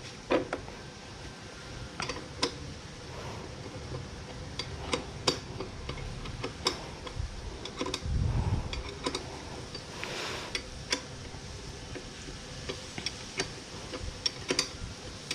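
Irregular sharp metallic clicks and taps from a spanner working on the rack-clamp bolts, with a dull thud about eight seconds in.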